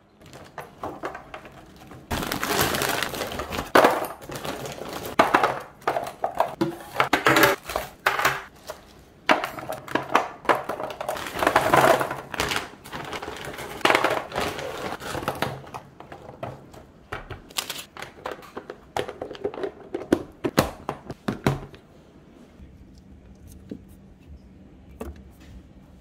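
Plastic food packaging crinkling and frozen breaded food pieces knocking against clear plastic storage containers as they are packed in, in irregular bursts with scattered clicks and thunks. It gets sparser and quieter in the last few seconds.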